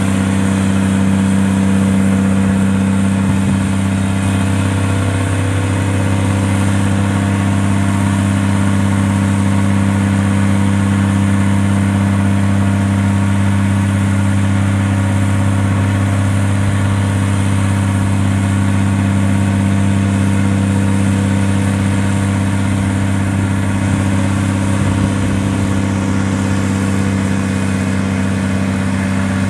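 2004 Volvo A40D articulated haul truck's Volvo D12 12.1-litre six-cylinder turbo diesel engine running at a steady idle.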